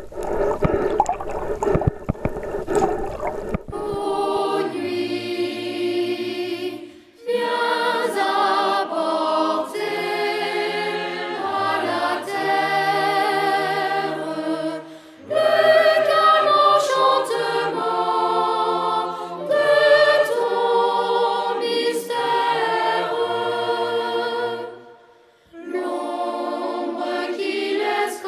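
About four seconds of underwater water noise, then choral music with long held sung notes that breaks off briefly a few times.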